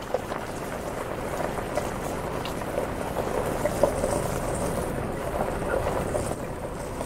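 4x4 driving slowly on a loose gravel track: a steady rumble of tyres rolling over gravel with many small stone ticks and crunches, under the engine's running.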